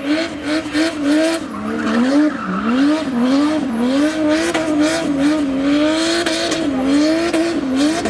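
A drift car's engine running high in the revs through a long slide, its pitch swinging up and down as the throttle is worked, with deeper dips and rises about two seconds in. Spinning rear tyres squeal and hiss underneath.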